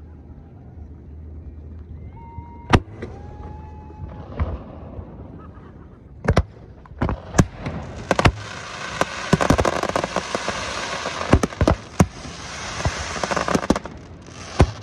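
Aerial fireworks shells bursting with a series of sharp bangs. About eight seconds in, a dense crackling from crackling-star effects fills in for several seconds, with further bangs through it.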